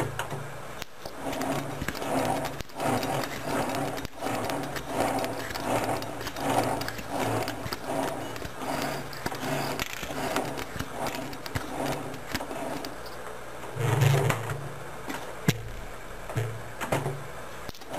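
A machine running in a steady cycle, about two strokes a second, with scattered clicks and knocks and one louder burst about fourteen seconds in.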